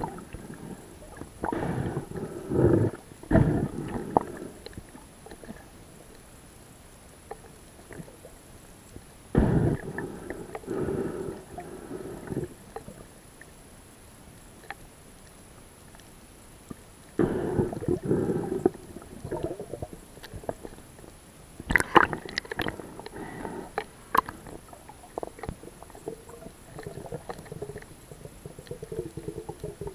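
Water gurgling and bubbling in the dive gear, heard underwater in four bursts several seconds apart, with quieter water noise between.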